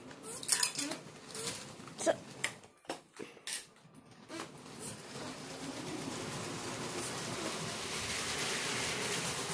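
Motorised Lego train running along plastic Lego track, a steady whirring that grows louder as it comes near, after a few scattered clicks and knocks in the first half.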